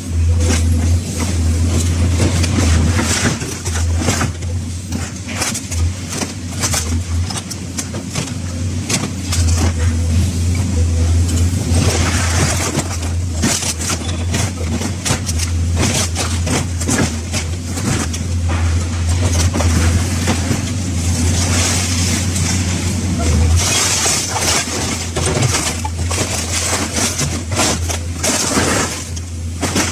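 Excavator engine running steadily under hydraulic load while its car-dismantling shear tears into a scrapped car body, with frequent metal clanks and crunches. There are several stretches of high-pitched scraping and tearing of sheet metal.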